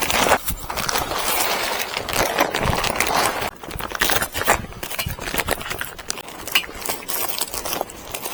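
Polyethylene greenhouse cover rustling and crinkling as it is pulled over and worked around the frame's corners, in irregular bursts with many small crackles.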